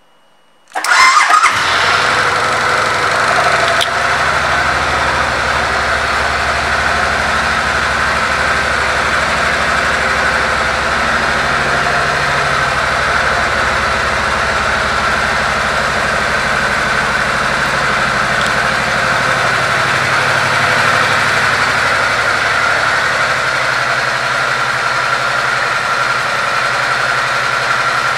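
2005 Suzuki Boulevard C90's V-twin engine starting about a second in, then idling steadily.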